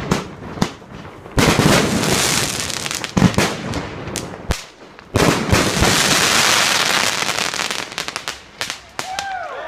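Fireworks display: a series of loud bangs from aerial shells bursting, each of the bigger ones followed by a long spell of dense crackling, with a flurry of small cracks near the end. People's voices break in at the very end.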